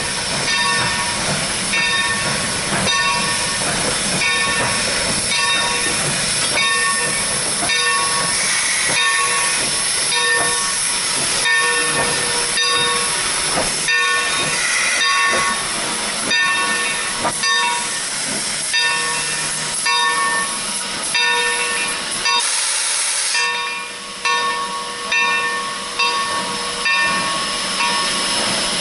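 Steam locomotive Texas State Railroad #30 moving slowly, its bell ringing steadily at about one stroke a second over a constant hiss of steam. A short, sharp burst of steam hiss comes about three-quarters of the way through.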